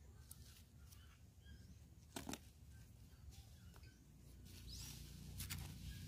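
Near silence, with a few faint clicks and scrapes of hands fitting a wooden stick trigger against an ear of dried corn, and a low rumble that rises near the end.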